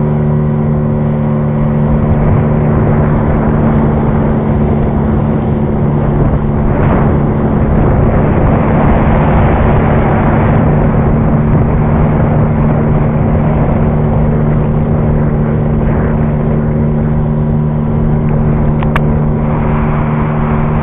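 Outboard motor running steadily on a small aluminium boat under way, a low, even hum mixed with wind and water noise.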